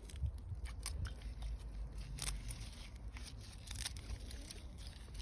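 Soapwort leaves and stems being cut up, a few irregular crisp cuts spaced unevenly over several seconds.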